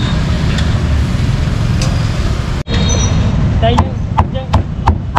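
Steady street traffic noise. After an abrupt cut about halfway through, a cleaver chops meat on a chopping board several times in quick succession, amid people talking.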